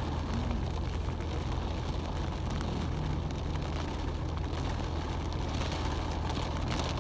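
Steady low drone of a car heard from inside its cabin, the engine running in slow traffic, with heavy rain on the windshield.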